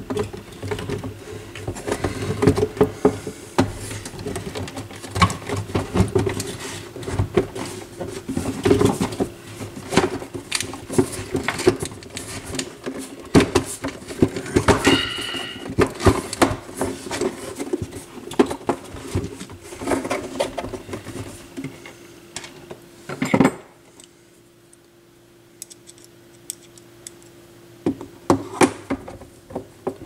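Irregular clattering, knocking and rattling of a turntable's plastic base and housing being handled and fitted back together, over a faint steady hum. One sharper, louder knock comes about three quarters of the way through, and a few more clatters near the end.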